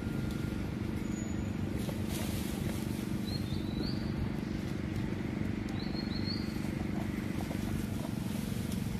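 Steady low hum with a bird's short paired chirps twice, about three and a half and six seconds in, and a few faint plastic clicks as a young macaque bites at a plastic bottle cap.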